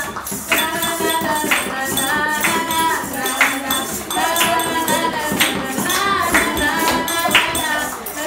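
A group of young voices singing a song together, backed by improvised hand percussion: claps, taps on a tin can and a rattling shaker, with a sharp accent about once a second.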